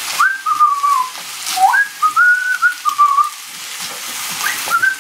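A person whistling a wandering tune in short phrases, over the sizzle of chicken stir-frying in a pan.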